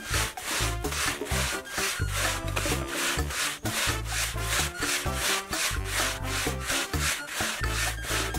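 Ice being shaved by hand, a block scraped back and forth over a blade in even strokes about three to four a second, with background music playing throughout.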